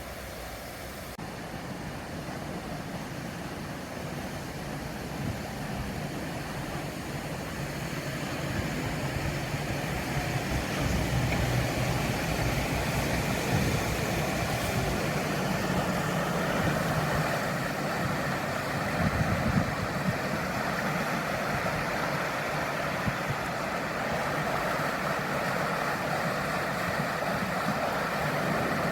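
A motor vehicle running, with a steady rushing noise that swells over the first ten seconds or so and then holds.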